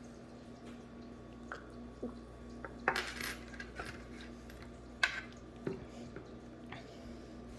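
Dishes and utensils clinking and clattering in a kitchen: a handful of separate sharp clinks, with a short flurry about three seconds in and a loud clink about five seconds in, over a faint steady low hum.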